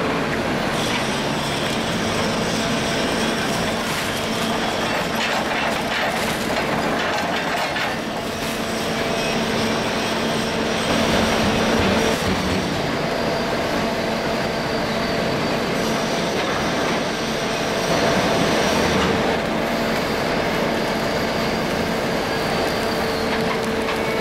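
Manta 54 non-ferrous metal baler running: a steady hydraulic hum under continuous metallic scraping and grinding of scrap. The noise swells briefly twice, around eleven and eighteen seconds in.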